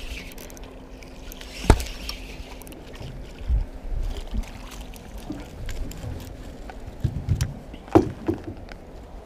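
Knocks and thumps in an aluminium fishing boat as gear and a landed bream are handled, with two sharp knocks, about two seconds in and near the end, the loudest. A faint steady hum stops about halfway.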